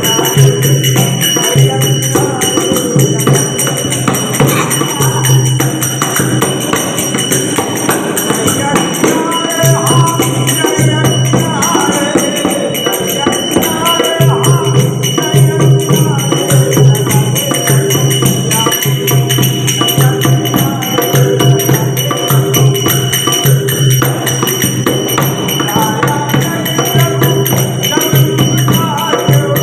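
Live Hindu devotional bhajan (kirtan): a man sings a wavering melody, accompanied by a dholak drum and jingling percussion over a steady low drone.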